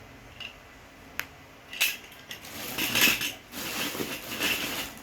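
Spare parts and their packaging being handled during an unboxing: a sharp click about a second in, a knock, then a run of crinkling, rattling handling noise.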